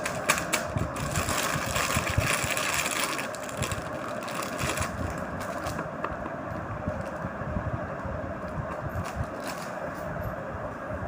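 Silicone pop-it fidget toy bubbles being pressed one after another, a stream of soft pops and clicks over a steady hiss. The popping is densest in the first few seconds and thins out later.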